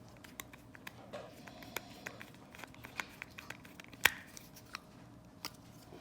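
Irregular small clicks and taps of a screwdriver tightening a wire terminal screw on a lamp socket clamp, with one louder click about four seconds in.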